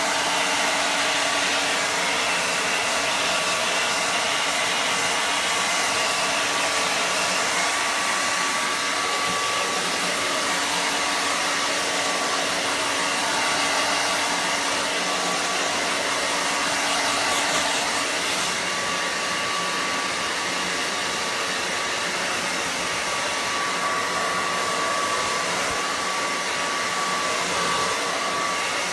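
Handheld hair dryer running steadily, blowing warm air over a wet dachshund's coat, an even rushing noise with a faint steady whine. It gets a little quieter about two-thirds of the way in.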